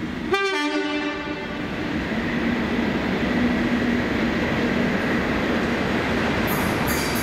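Class 37 diesel locomotive sounding its two-tone horn just after the start, a brief higher note then a held lower one, then its engine and train running louder as it approaches. High-pitched wheel squeal starts near the end.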